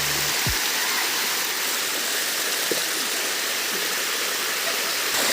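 Water pouring down a waterfall: a steady, even rush of noise.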